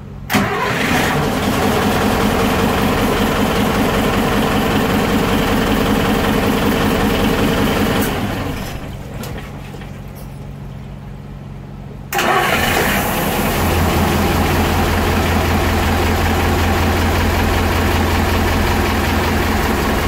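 Twin MAN 800 marine diesel engines starting and running in a yacht's engine room. The first catches suddenly right at the start and runs steadily. The level dips for a few seconds past the middle, then jumps back up with a deep, steady drone. They start now that the faulty Fireboy engine-shutdown relay board, whose burned relay contacts had been holding the engines in shutdown, is bypassed.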